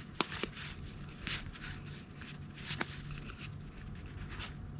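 Game cards being slid one at a time off a held stack and onto another: brief rubbing swishes of card stock and a few light clicks.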